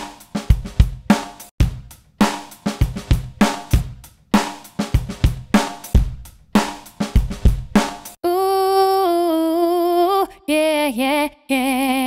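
A drum-kit loop from a sample library (kick, snare, hi-hat and cymbal hits in quick succession) played straight from the DAW, unprocessed. About eight seconds in it switches to a vocal sample of long sung notes with vibrato that slide in pitch.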